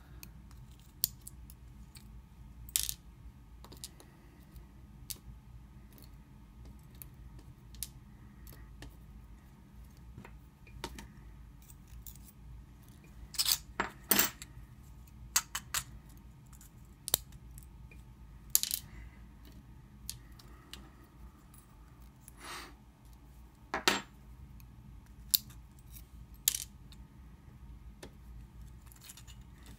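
Small metal lock parts and tools clicking and tapping as a disassembled padlock cylinder's pins and springs are handled with tweezers and set down on a hard surface: irregular sharp clicks, a few louder ones about halfway through.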